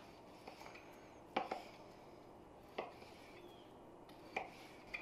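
Kitchen knife slicing a venison backstrap into medallion steaks, the blade tapping the plastic cutting board as each slice goes through: four faint taps about a second and a half apart, the first one doubled.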